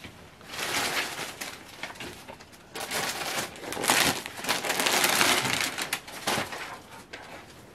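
Cloth rustling as a folded suit set is moved, then the crinkling of a clear plastic package of suit material being handled, loudest about four to five and a half seconds in.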